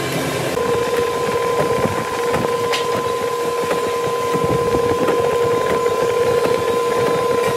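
Woodworking drilling machine running with a steady whine while its bit bores into a timber beam, with crackling from the cutting. The whine sets in about half a second in.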